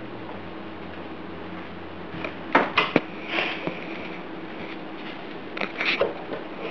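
A few sharp knocks and clicks in two short clusters, a little over halfway through and again near the end, over a steady low room hum, with a brief breathy rush between them, as someone moves about a kitchen.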